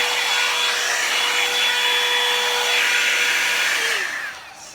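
Marble one-step hot-air dryer brush running: a steady rush of air with a motor whine. Near the end it is switched off, the whine drops in pitch and the rush dies away.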